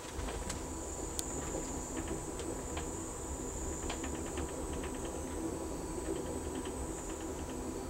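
Interior noise of an Amtrak Coast Starlight passenger car rolling downgrade: a steady low rumble of wheels on rail, with a thin, steady high-pitched whine over it and scattered light clicks and rattles.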